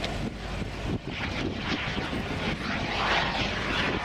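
Small jet engine of a jet-powered glider in flight, a steady rushing hiss that swells about three seconds in.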